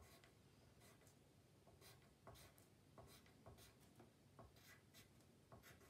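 Pencil scratching on paper in short, quick strokes, two or three a second, drawing spiky lines. The scratching is faint.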